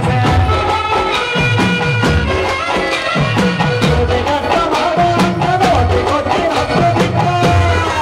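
Folk music for a kolatam stick dance: a melody over a steady drum beat of deep, pitch-falling strokes, about two a second.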